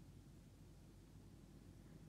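Near silence: a faint, steady low rumble.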